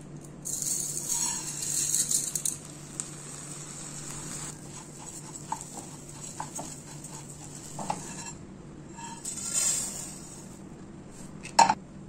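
Kitchen preparation sounds: two stretches of rustling, scattered light clinks and taps of utensils and dishes, and one sharp knock near the end, over a steady low hum.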